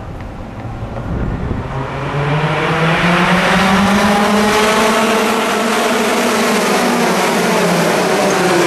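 A pack of racing karts with two-stroke engines approaching and accelerating, several engine notes overlapping. It grows louder over the first few seconds as the notes rise, then holds at full volume, with a few notes dropping in pitch near the end as karts go past.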